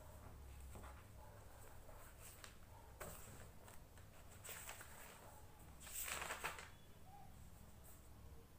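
Faint rustling of paper as the pages of a spiral-bound notebook are handled, loudest about six seconds in, with a light click about three seconds in, over quiet room tone.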